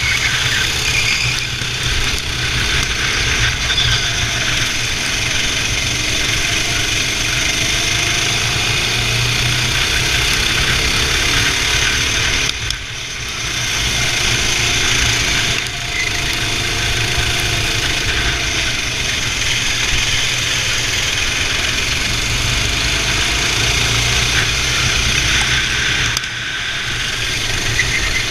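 Kart engines running steadily and loudly, with three short drops in level about 13, 16 and 26 seconds in.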